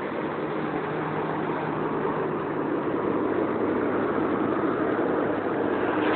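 Volvo B7TL double-decker bus's diesel engine and cooling fan running, heard from outside beside the bus. A steady low hum sits under a rushing noise, and it grows a little louder.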